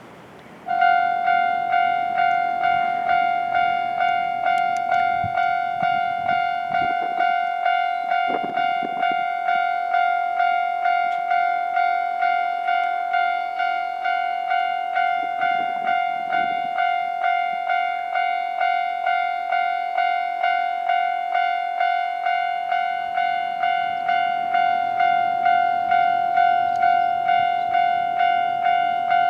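Japanese railway level-crossing warning bell starting suddenly about a second in and then ringing on steadily, a clear electronic ding repeated at about two strokes a second, signalling that a train is approaching.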